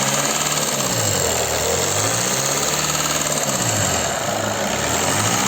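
Seat Leon 2.0 TDI diesel engine running with a rapid knocking clatter from the top of the engine, its pitch rising and falling a few times. The mechanic traces the knock to the valve train, checking the camshafts and hydraulic lifters.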